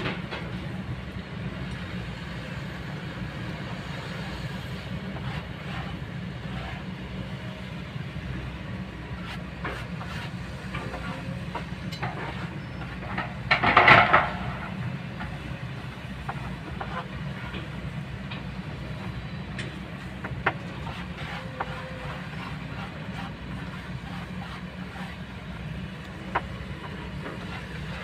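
Kobelco long-reach excavator's diesel engine running steadily, with scattered short knocks and clicks and one louder noise lasting about a second halfway through.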